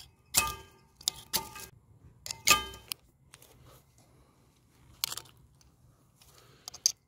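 Knife blade scraped hard down a ferrocerium (flint) fire-starter rod four times within about three seconds, each stroke a sharp metallic rasp with a brief ring, showering sparks onto paper towel and dry leaves. After that it is quiet apart from a few faint ticks.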